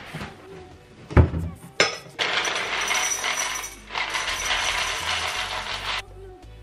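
Two knocks about a second in, then dry cereal pieces pouring from a cardboard box and rattling into a ceramic bowl for about four seconds, with a short break midway, stopping a little before the end.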